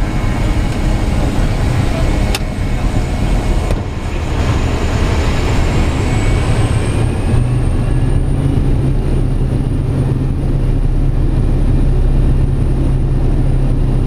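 Pilatus PC-6 Turbo Porter's turboprop engine and propeller, heard from the cockpit: a high turbine whine rises in pitch and then holds, and the propeller's low drone grows stronger about halfway through as power is brought up. There is a single sharp click a couple of seconds in.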